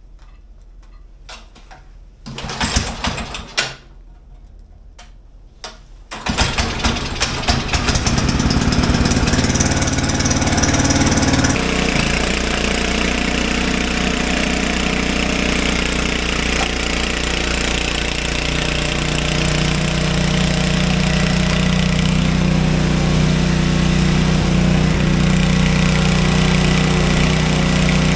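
Old Craftsman 5/24 snowblower's small single-cylinder engine being started: a short burst of cranking about two seconds in that does not catch, then about six seconds in it fires, runs unevenly for a moment and settles into a steady run. Its note shifts about halfway through and again later.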